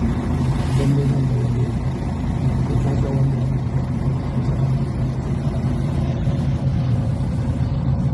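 A motor vehicle's engine running steadily, giving a constant low hum.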